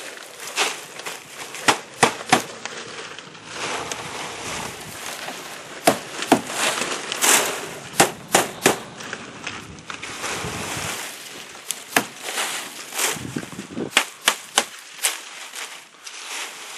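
Palm fronds being nailed onto a wooden roof frame: irregular sharp knocks of hammer blows on nails, over the rustle and crackle of dry palm leaves being handled.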